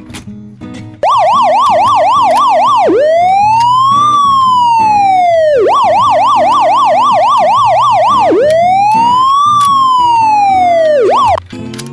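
Loud electronic siren. It switches on suddenly about a second in and alternates a fast yelp of about four sweeps a second with a slow wail that rises and falls over two to three seconds, twice. It cuts off shortly before the end.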